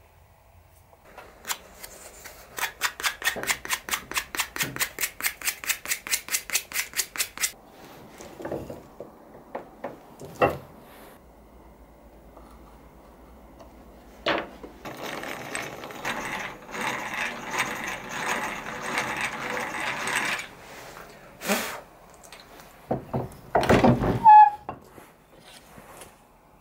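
Hand tools working wood at a workbench: first about five seconds of fast, even strokes, about six a second, then several separate knocks, then about six seconds of continuous rough working noise, and a few more knocks, the loudest about three-quarters of the way through.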